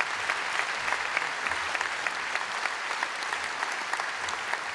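Audience applauding steadily at the end of a live song with guitar.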